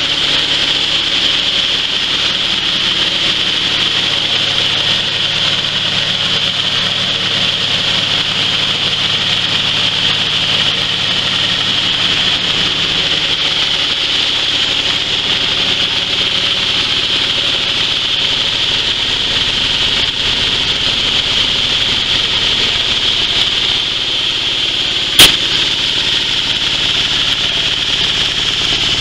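Coffee huller for dry coffee running steadily, driven by a small engine: a constant engine drone under a steady high-pitched rushing noise. A single sharp crack near the end.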